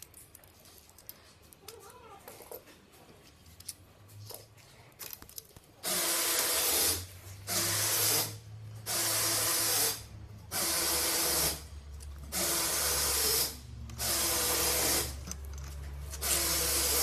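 Cordless drill-driver run in about seven short bursts of a second or so each, a motor whine with a hiss, after some light clicking of parts being handled.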